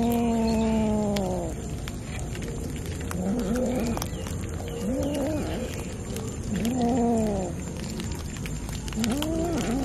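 Cats meowing repeatedly: about five drawn-out meows, each rising then falling in pitch, the first the longest. Scattered short clicks sound under the meows.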